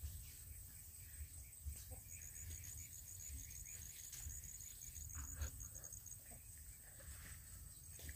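Quiet outdoor background: a low rumble, a steady high whine, and a rapid high chirping trill for a few seconds in the middle, with faint ticks and rustles. The mating Muscovy ducks themselves make no clear call.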